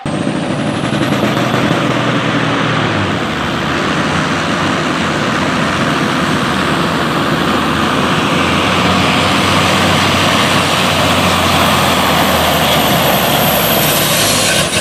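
Big-rig diesel engine run at full throttle under heavy load, dragging a weight-transfer pulling sled: a loud, steady drone with no let-up.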